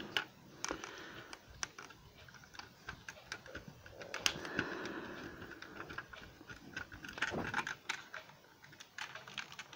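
Irregular small clicks, taps and scrapes of a screwdriver working at the screws that fix a model limousine to its box, as the model is turned over in the hands.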